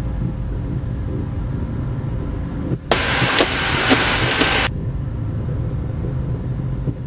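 Steady low rumble of the Cirrus SF50 Vision Jet's cabin during the landing rollout. About three seconds in, a burst of radio hiss switches on abruptly and cuts off just under two seconds later.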